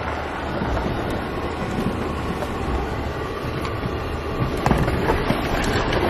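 All-wheel-drive Hyundai diesel driving across a rough, flooded stretch of dirt road: a steady rumble of tyres and suspension, with a few knocks near the end.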